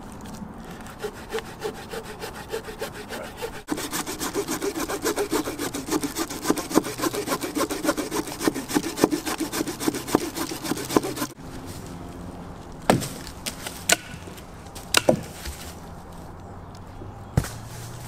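Swiss Army knife saw blade sawing through a cherry-wood branch in rhythmic back-and-forth strokes. The strokes quicken and grow louder about four seconds in, then stop suddenly about eleven seconds in. A few separate sharp knocks follow.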